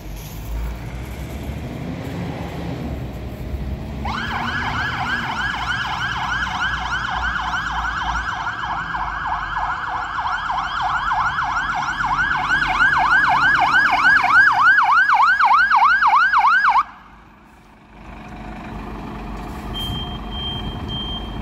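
Scania P360 fire engine's electronic siren sounding in fast rising-and-falling sweeps over its diesel engine. It grows louder, then cuts off suddenly. Afterwards the engine keeps running and a high beeping starts near the end.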